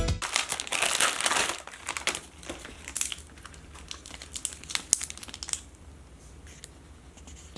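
Slime being squeezed and worked close to the microphone, making dense crinkly crackling clicks that thin out to a few faint ones after about five and a half seconds.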